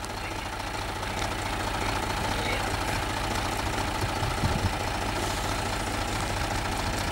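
Farm tractor engine idling steadily with an even, rapid low throb.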